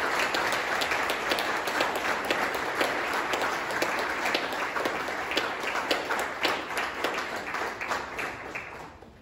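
Audience applauding, the clapping slowly thinning out and fading, then stopping near the end.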